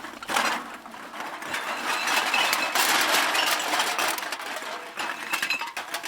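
A bag of empty metal cans being dumped out: a dense, rattling clatter of many cans tumbling and clinking against each other, thinning to a few scattered clinks near the end.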